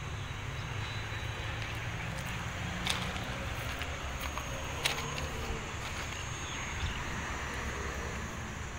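Steady low rumble of an idling diesel engine at a railway station, with a few faint sharp clicks about two seconds apart.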